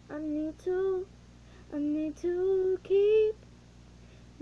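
A girl singing unaccompanied: five short held notes, then a pause of about a second near the end.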